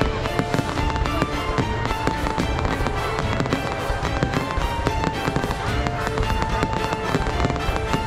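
Fireworks going off in a rapid, continuous stream of bangs and crackles, with a melody of held notes playing along.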